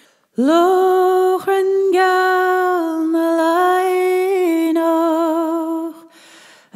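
A woman singing unaccompanied: one slow phrase of long held notes with gentle slides, scooping up into the first note and stopping about six seconds in.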